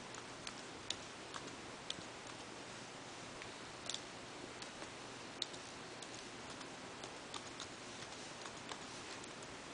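Computer keyboard keys clicking faintly as someone types slowly, irregular single keystrokes about two a second over a steady low hiss.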